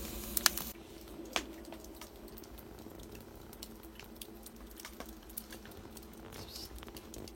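Birch-wood fire crackling in a wood-fired oven: scattered sharp pops and snaps over a faint hiss, a little louder in the first second.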